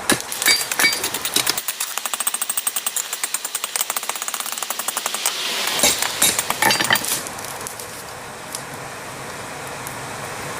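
Hammer striking a hot railroad spike on an anvil: a few separate blows, then a rapid run of light taps, about seven a second for some four seconds, then a few more blows. After that only a steady rushing noise remains.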